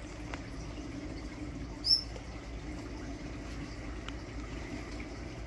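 Steady hum and water noise of a large reef aquarium's pumps and circulating water. A single short, high chirp comes about two seconds in.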